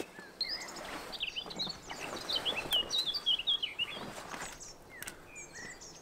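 A songbird singing a rapid run of high chirps and trills, pausing briefly and starting again near the end, with a couple of soft scuffing sounds underneath.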